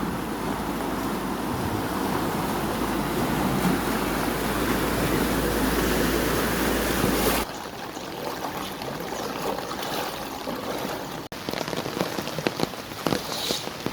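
Rain and floodwater, with heavy wind rumble on the microphone for the first half. The sound changes abruptly about halfway through, to a quieter patter of drops and splashes.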